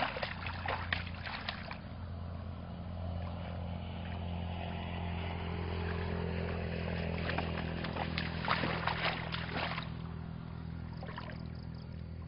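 Water splashing and sloshing as someone wades through a shallow muddy ditch, in a cluster of splashes at the start and another from about seven to ten seconds in. A steady low hum runs underneath.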